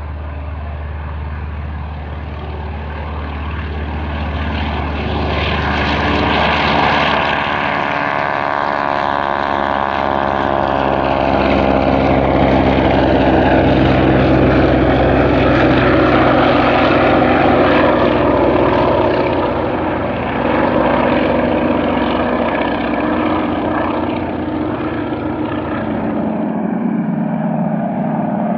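Propeller aerobatic aircraft flying by in formation: the radial engines of biplanes and a small monoplane drone together. Their pitch slides downward as they pass, a few seconds in, and the sound is loudest around the middle.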